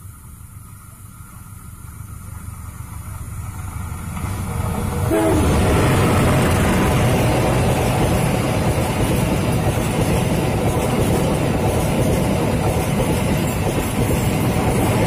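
A diesel-hauled passenger train approaching and growing steadily louder, then its coaches running past close by from about five seconds in, a loud, steady rumble of wheels on the rails.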